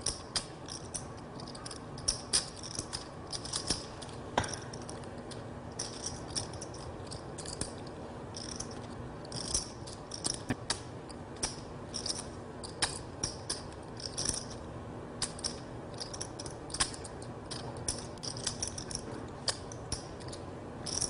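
Poker chips clicking as a seated player riffles and fiddles with a stack while he thinks: irregular clusters of sharp little clicks over a faint steady hum.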